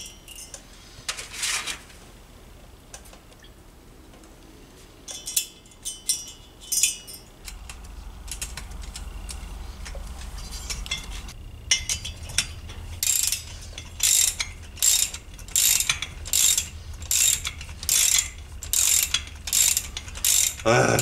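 Hand ratchet wrench clicking in quick back-and-forth strokes, about two a second for the second half, as it runs down the cylinder stud nuts on a Tomos A35 moped engine's head. A few scattered clicks come earlier.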